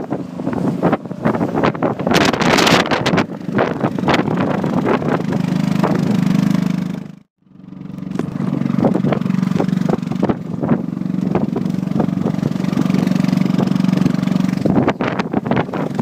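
Wind buffeting the microphone in a snowstorm, with a steady engine hum coming in about four seconds in. The sound cuts out for an instant about halfway, then the engine hum carries on under gusts and short clicks.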